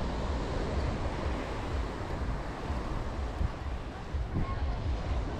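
Caribbean surf washing onto the beach, with wind buffeting the microphone in irregular low rumbles.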